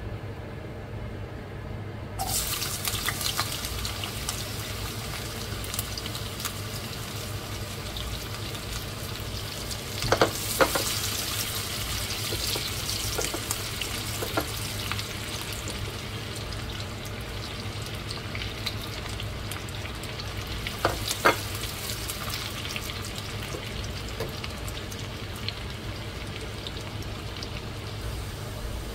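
Food sizzling and crackling in hot oil in a pan. It starts suddenly about two seconds in, as if the food has just gone into the oil. A utensil knocks against the pan a few times, around ten and twenty-one seconds in.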